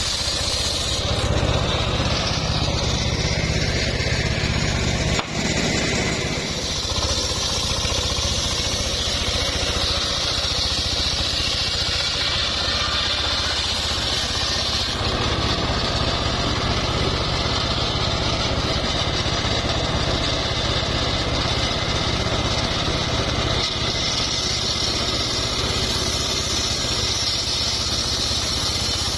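Homemade table circular saw ripping timber: the blade cuts steadily through the wood over the drone of the saw's drive running continuously, with one brief click about five seconds in.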